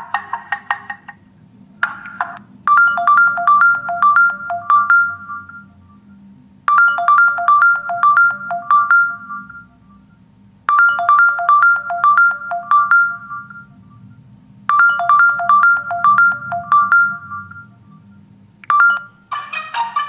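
LG Q6 smartphone playing ringtone previews through its speaker: a melody of quick, bright, mallet-like notes in a phrase of about three seconds, looping about every four seconds with a short pause between. About two seconds in the previous ringtone is cut off as this one starts, and about a second before the end a different ringtone takes over.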